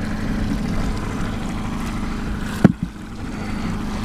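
Boat's outboard motor running steadily at trolling speed, a low even hum, with one brief sharp thump about two and a half seconds in.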